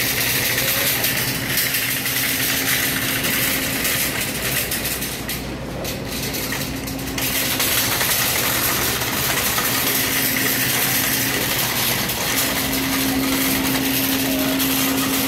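Wire shopping cart rolling and rattling over a smooth store floor, a steady rumbling noise that eases for a couple of seconds about five seconds in, with a steady hum underneath.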